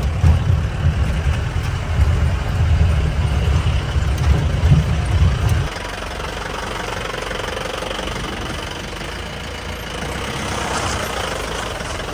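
Off-road jeep engine running with a heavy low rumble. About halfway through it drops abruptly to a quieter steady hum.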